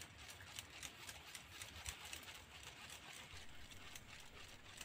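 Faint, irregular light clicking of a baitcasting reel being wound in, several ticks a second, over a low outdoor rumble.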